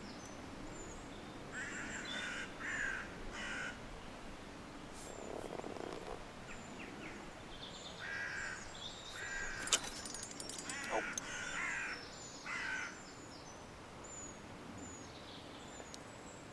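Crows cawing in two bouts, about three harsh caws and then about five more, with small birds chirping thinly in the background and one sharp click near the middle.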